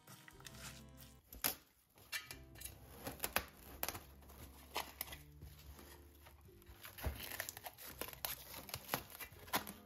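Plastic cling film crinkling and crackling as it is pulled off the roll, stretched over a steel bowl and pressed down around the rim, with many sharp snaps. Soft background music underneath.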